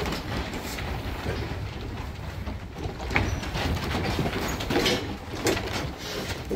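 Sheep milling in a pen on a shearing shed's slatted wooden floor: a steady rumble and clatter of hooves on the boards, with a few sharp knocks against the wooden pen rails.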